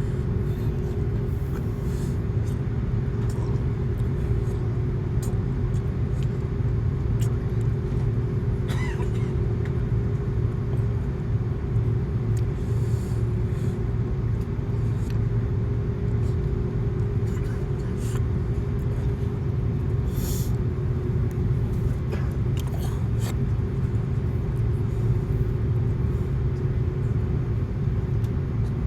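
Steady low rumble inside the cabin of an Airbus A330-200 airliner, with a steady hum and a few faint clicks and knocks.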